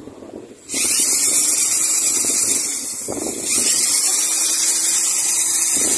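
Powerhouse electric drain cleaner motor switching on about a second in, spinning up and running steadily with a high whine as it turns its spiral cable; the level dips briefly near the middle, then comes back up.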